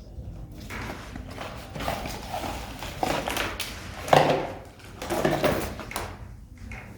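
Smart doorbell box and its packaging being handled during unboxing: irregular rustling and small knocks, with a sharper knock about four seconds in.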